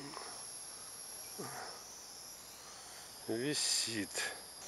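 SG907 quadcopter's motors and propellers hovering: a steady high-pitched whine from its freshly replaced brushless motors, which are being flight-tested. A voice calls out briefly about three seconds in.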